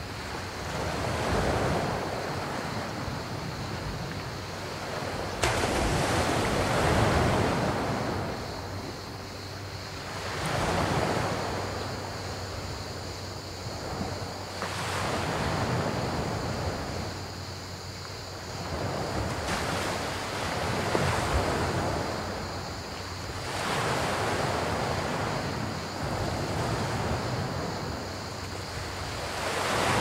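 Small sea waves breaking and washing over a pebble beach, surging and fading about every four seconds. Crickets chirr steadily underneath. A single sharp click comes about five and a half seconds in.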